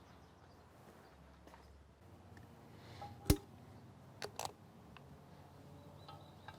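Quiet workshop hum with tools being handled: one sharp knock with a short ring about three seconds in, then two lighter clinks about a second later.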